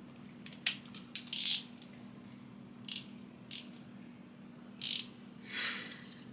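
Socket ratchet wrench clicking in about six short bursts, working the oil drain plug loose.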